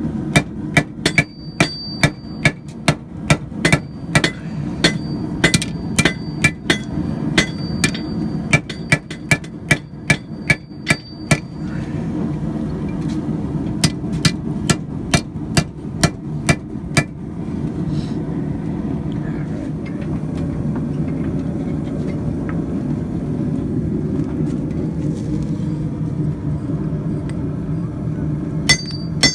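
Hand hammer forging coil-spring steel on an anvil, ringing blows about two to three a second, over a steady low hum. The blows stop a little past halfway and start again just before the end.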